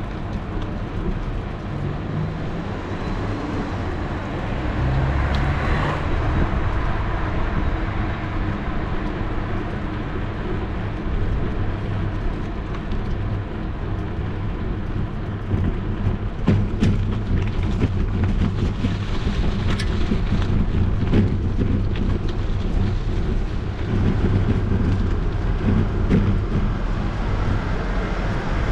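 Riding noise from a camera on a moving bicycle: steady low rumble of wind and tyres on the road, with a run of clicks and knocks from about 16 to 21 seconds in.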